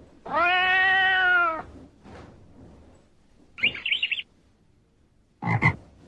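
A cat sound effect gives one long meow. A short, high chirping follows. Near the end a frog croaks briefly.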